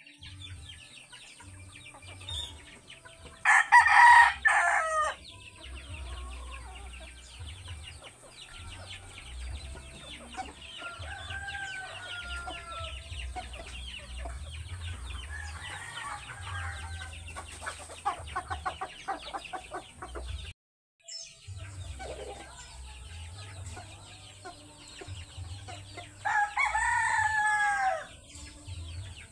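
Rooster crowing, loud and close, a few seconds in and again near the end.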